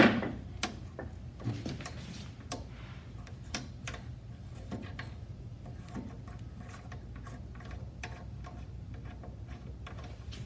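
Light, irregular metal clicks and taps as a loosened bolt held with Loctite is turned out by hand and handled, with a sharp click at the start, over a steady low hum.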